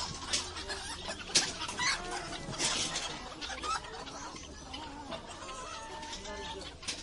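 Chickens clucking in a busy animal market, many short calls overlapping, with a few short noisy bursts in the first three seconds.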